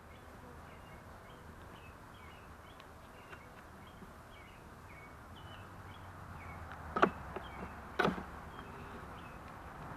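Honey bees buzzing steadily around an open hive, with two sharp knocks about seven and eight seconds in as a beekeeper's hive tool pries at the feeder.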